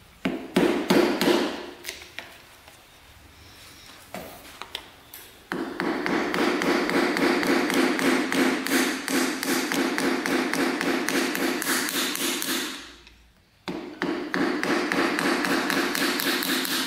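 Hammer striking a screwdriver set against the piston in a dirt bike's front brake master cylinder, knocking at the seized piston to free it. A few hard blows come first, then two long runs of rapid metallic taps with a short pause between them.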